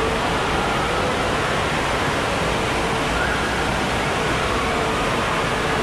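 Steady rushing-water din of an indoor waterpark: water pouring and splashing from the play structures, heard as an even, unbroken noise.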